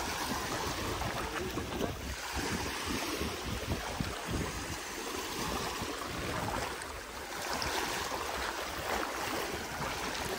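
Shallow estuary water splashing and sloshing around a fisherman's legs as he hauls in a fine-mesh net, with small waves washing in and wind.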